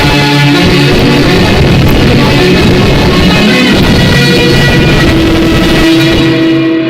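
Loud music with guitar and drums, played over a sonidero sound system; the treble drops out briefly near the end.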